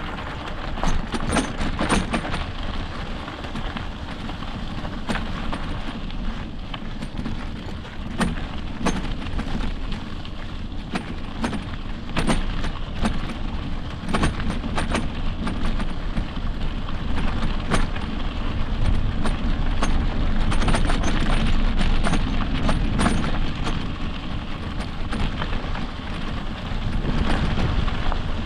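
Riding an electric mountain bike along a dirt trail: a steady low rumble of wind on the microphone and tyres on dirt, with frequent rattles and knocks as the bike goes over bumps.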